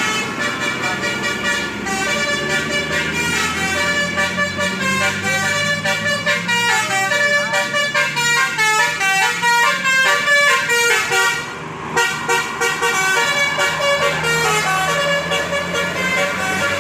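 Bus basuri multi-tone air horn playing a fast telolet melody, its notes jumping up and down several times a second, with a brief break near the end.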